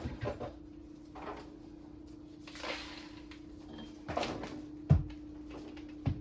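Scattered knocks, clicks and a brief rustle of tools and parts being handled against a wooden cabinet, with the sharpest knock about five seconds in, over a steady low hum.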